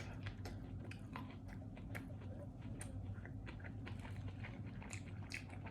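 Chewing chicken nuggets close to the microphone: irregular soft mouth clicks and smacks.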